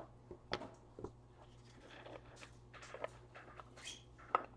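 Trading cards and plastic card holders being handled on a table: scattered light taps and soft rustling, with a sharper tap near the end, over a faint steady hum.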